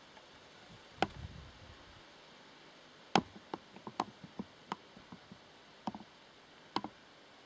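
Handling noise on a Panasonic SDR-S50 camcorder: about fifteen irregular clicks and taps of fingers on the body. About a second in there is a knock with a brief low rumble after it, and the loudest click comes a little after three seconds. A steady hiss from the built-in microphone runs underneath.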